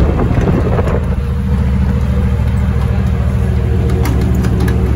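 LiAZ-677MB city bus's V8 petrol engine running steadily, with a few light rattles about four seconds in.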